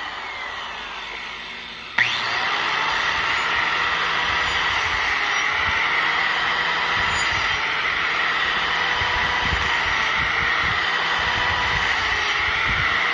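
Angle grinder with a wood-carving disc spinning down, then switched on again about two seconds in and running steadily while it grinds down a goat's hoof.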